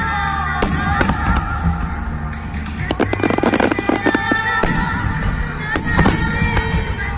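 Aerial firework shells bursting in a series of sharp bangs, with a dense stretch of crackling about three seconds in. Music with sustained notes plays underneath.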